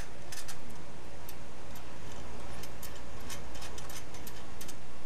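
ProCut EZ label finishing machine humming steadily, with scattered light, irregular clicks and ticks over it.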